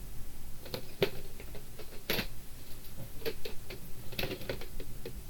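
Plastic videotape cases being handled and put down: several clusters of short clicks and knocks, about one cluster a second.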